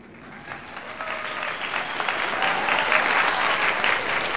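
Audience applause, fading in and building over the first two seconds, then steady.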